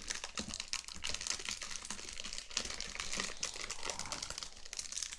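Crinkling and crackling of a plastic rack-pack wrapper being pulled and torn open by hand, without scissors: a continuous run of sharp, irregular crackles.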